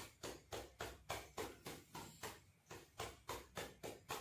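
Hands patting rhythmically on a patient's back in chest physiotherapy percussion, about three to four pats a second, done to loosen built-up secretions in the chest.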